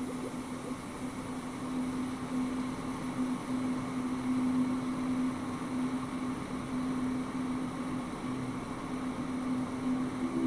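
Ambient electronic drone from the film's score: one steady low hum that swells and fades slightly, over a soft hiss. A second, higher tone comes in right at the end.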